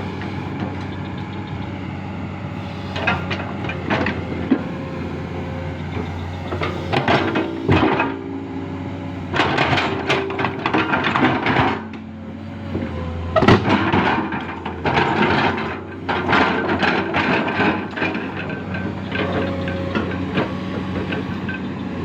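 Hydraulic excavator running steadily while digging, with a whine that wavers in pitch and repeated bursts of knocking and scraping as the bucket works.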